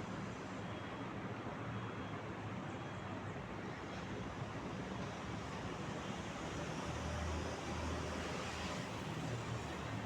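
Steady hum of city traffic, with a low engine rumble swelling about seven seconds in.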